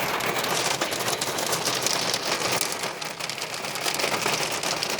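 Heavy downpour of hail and rain pelting down: a dense, steady patter of countless small impacts.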